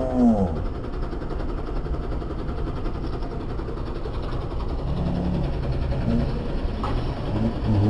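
Farm tractor's diesel engine running steadily under load as the tractor drives in tight circles on loose dirt.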